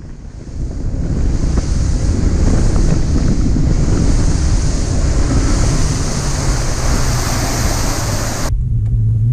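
Wind buffeting the microphone and water rushing against the hull of a Phoenix bass boat out on open water, a loud steady rush that cuts off suddenly near the end.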